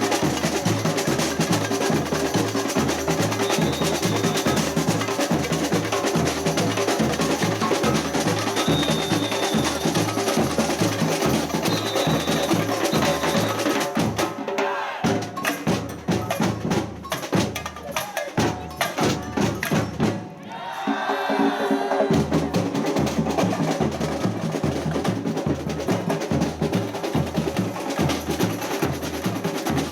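Samba percussion ensemble playing a driving groove, with bass drums on a steady beat of about two a second under rattling snares and bright wood-block-like hits, and a few short high whistle tones. About halfway through, the full groove breaks off into several seconds of sparser hits, then comes back in.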